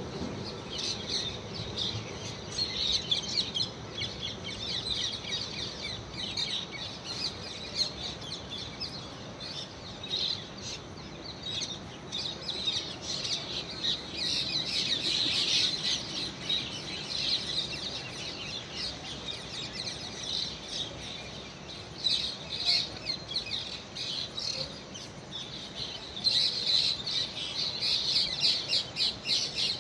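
Many small birds chirping and twittering in busy, uneven bursts, with a faint low rumble of a departing train at the start.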